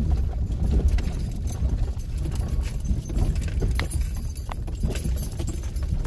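Minivan driving slowly over a rough gravel track, heard from inside the cabin: a steady low rumble from tyres and body, scattered with rattles and clicks as it bumps over the stones.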